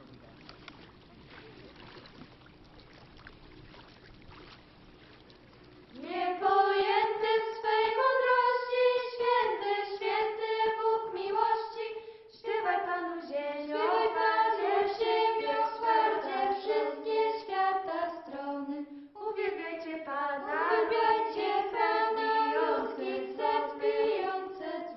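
Faint steady background noise, then about six seconds in a choir starts singing a slow hymn in long held notes, with short breaks between phrases.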